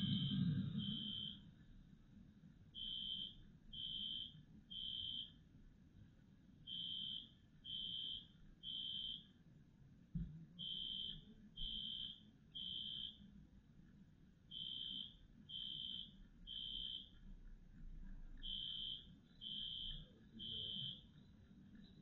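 Fire alarm sounding faintly in the temporal-three evacuation pattern: three high-pitched beeps, a pause, then three more, repeating about every four seconds; a false activation. A low rumble fades out in the first second.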